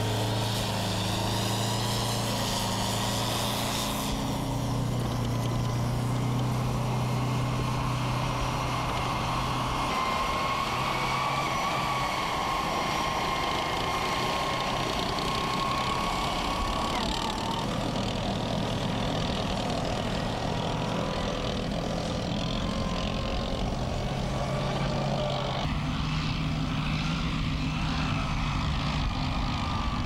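M109 155 mm self-propelled howitzer on the move: its Detroit Diesel V8 two-stroke engine running under load with tracks and running gear clattering. The engine note steps up and down several times as it drives, with a thin high whine over it for a stretch in the middle.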